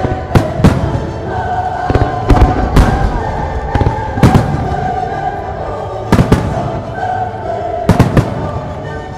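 Large aerial firework shells bursting in rapid succession: a dozen or so sharp booms, often two or three close together, with each burst echoing. Background music plays underneath.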